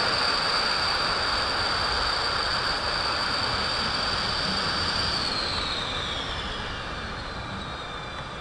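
Tupolev Tu-22M3's twin Kuznetsov NK-25 turbofans running with a steady high whine over jet noise as the bomber moves away down the runway. From about five seconds in, the whine falls in pitch and the sound fades.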